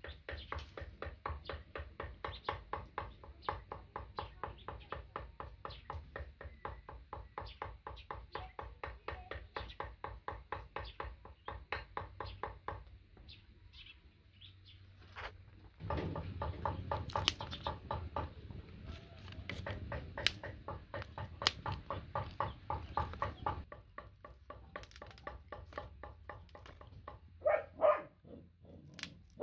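Steady rhythmic strikes on a wooden stump block, about four a second, from food being chopped or pounded by hand. The strikes pause, then resume louder with a rustling noise behind them. Near the end come a few sharp cracks of dry twigs being snapped by hand.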